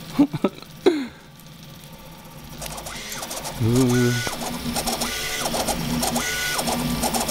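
Stepper motors of a sandwich200 CoreXY 3D printer whining as the print head sweeps back and forth at high speed. On each pass the pitch rises, holds and falls, about once a second, as the head accelerates along the part and slows at each end. A few handling knocks come near the start.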